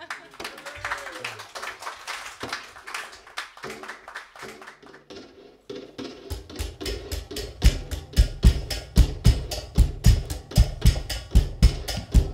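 Live band music: for the first few seconds only sparse light taps and small percussion sounds with faint tones, then about six seconds in a steady drum beat starts up, its low bass-drum hits about twice a second.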